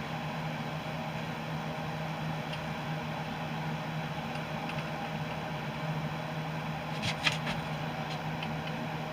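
Steady low machine hum, with a brief cluster of sharp clicks about seven seconds in.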